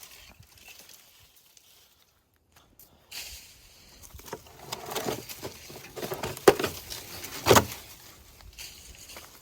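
Tree branches and leaves rustling and cracking as they are handled, with two sharp, louder cracks about three and four seconds after the rustling begins.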